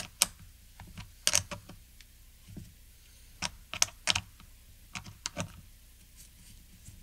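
Small metal hardware clicking and tapping as a terminal nut, washer and eyelet connector are fitted by hand onto an ignition coil's terminal: irregular sharp clicks in a few short clusters.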